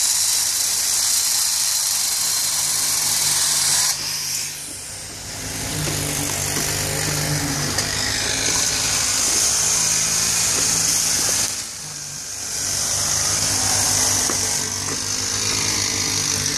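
Construction-site machinery running: a steady engine hum under a loud high hiss, easing off briefly twice.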